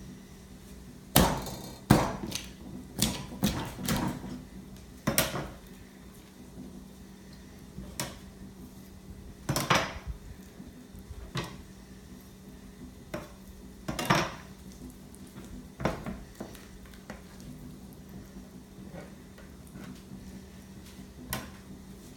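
Scimitar butcher knife knocking against a cutting board while breaking down a whole chicken: irregular sharp chops, a quick run of them in the first few seconds, then single knocks every second or two.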